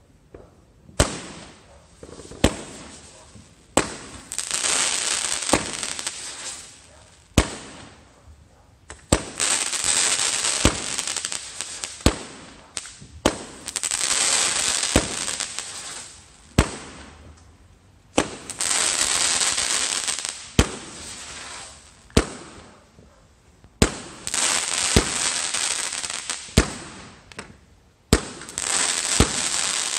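Aerial fireworks fired from the ground in a repeating series. Each shot is a sharp bang followed by two to three seconds of loud hissing as it climbs, and further single bangs fall in between.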